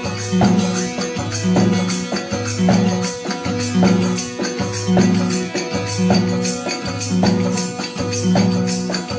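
Instrumental break in a Rajasthani desi veena bhajan, with no singing. A low note pattern repeats about once a second under steady jingling percussion.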